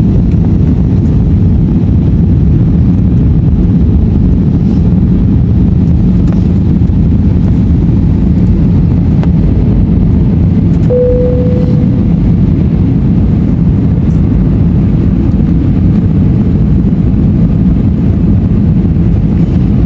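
Steady, loud cabin noise of an airliner descending to land, engines and rushing air heard from inside the cabin. A short single tone sounds once about halfway through.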